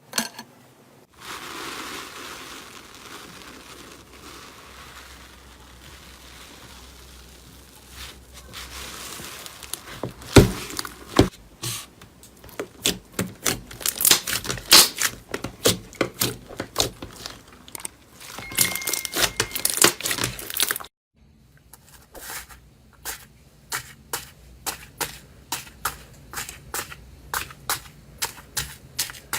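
Slime being squeezed and worked close to the microphone: a soft steady hiss for several seconds, then a dense run of sharp crackles and pops. After a sudden cut, evenly spaced clicks follow at about three a second.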